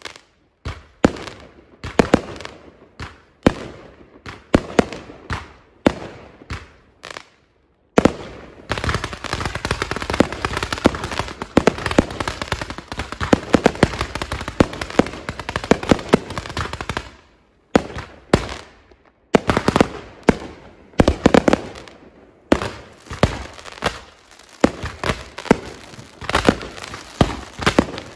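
Fireworks display going off: a run of sharp bangs about every half second to second, each trailing off. About eight seconds in comes a dense spell of rapid crackling reports lasting several seconds, then separate bangs again after a short gap.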